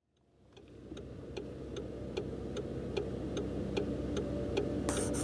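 Steady ticking, about two and a half ticks a second, fading in from silence over a low sustained drone; a short hiss comes in near the end.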